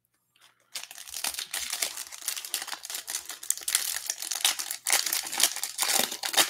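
Foil wrapper of a Panini Select UFC trading-card pack being torn open and crinkled in the hands: dense, irregular crackling that starts about a second in and keeps going, with a short lull near the end.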